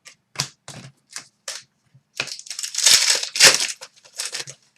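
Trading cards being handled and flipped: a few quick card flicks, then about two seconds of crackling and rustling from card stock and packaging.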